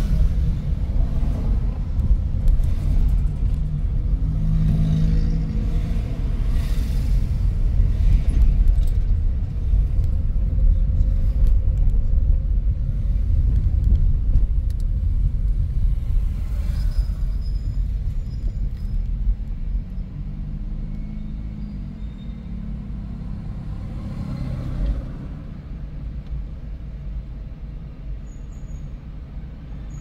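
Car on the move: steady engine and road rumble, easing down in the last third.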